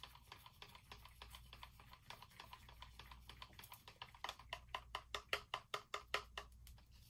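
A stir stick ticking against the side of a plastic cup while stirring thick acrylic paint: a faint run of quick clicks that comes faster and a little louder about four seconds in.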